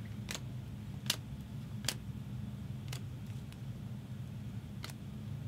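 Upper Deck Marvel Platinum trading cards being flipped one at a time through a stack held in the hands: a sharp little click or snap roughly every second, five in all, over a steady low hum.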